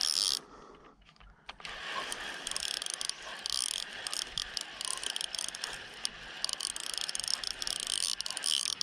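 Fishing reel being cranked, its gears giving a steady fine clicking as line is wound in. It pauses briefly about half a second in, then winding resumes.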